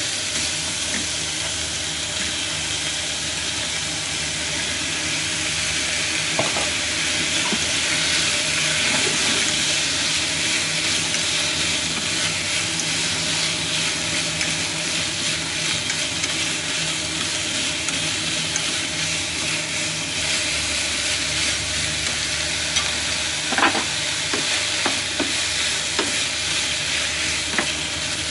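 Pork slices and vegetable pieces frying in a hot nonstick frying pan, a steady sizzling hiss, while being stirred and turned with chopsticks and a wooden spatula; a few taps and scrapes of the utensil on the pan near the end.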